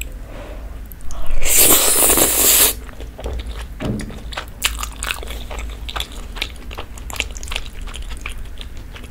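Close-miked eating of a mouthful of thick rose-sauce spaghetti: a loud slurp of the noodles lasting about a second and a half, then chewing with many small wet clicks.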